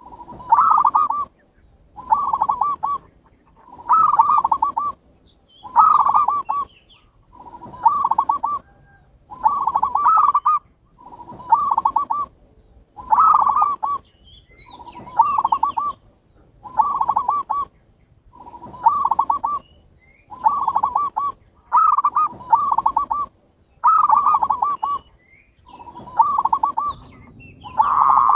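Zebra dove (perkutut) cooing: the same short phrase of quick, rolling notes repeated over and over, about one phrase every two seconds.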